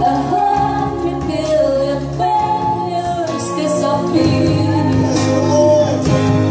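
A woman singing the lead of a contemporary worship song, backed by a live band of keyboard, guitar and drums.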